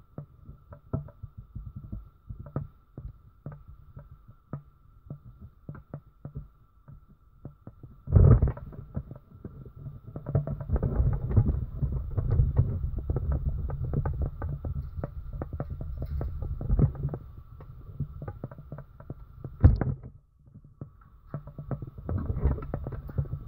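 Irregular small clicks and knocks from an Asian palm civet feeding and moving about on the wire mesh of its cage. From about eight seconds in they thicken into a dense clatter with low rumbling handling noise, with two sharp loud knocks about eight and twenty seconds in.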